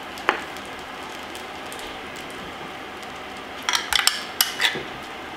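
Utensils clicking and clinking against a frying pan, once early and then several times in quick succession about four seconds in, over a steady sizzle of noodles frying in butter.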